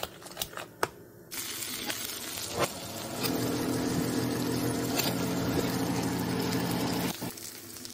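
A spoon stirring a wet grated-potato and egg mixture in a bowl, with a few clicks against the bowl; then, about a second in, melted butter sizzling and foaming in a frying pan. A steady hum joins the sizzle about three seconds in and stops about a second before the end.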